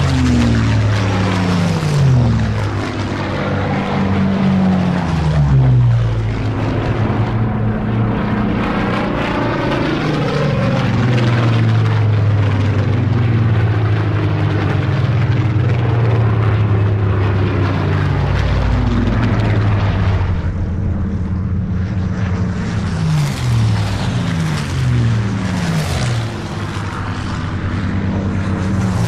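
Piston-engined propeller aircraft flying overhead, a steady engine drone whose note falls in pitch each time one passes, several times over.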